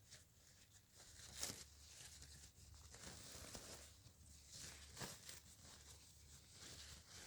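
Near silence: faint rustling with two soft clicks, about one and a half seconds and five seconds in.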